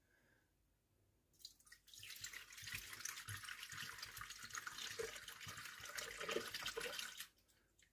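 Milk pouring from a carton into a Thermomix's empty stainless steel mixing bowl: a steady splashing stream that starts about a second and a half in and stops shortly before the end, with a few glugs from the carton partway through.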